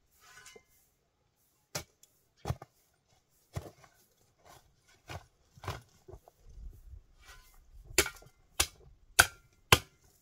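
Long-handled metal shovel digging and scooping soil toward a wheelbarrow: a string of sharp clinks and scrapes, spaced out at first, then coming faster and louder near the end, about two a second.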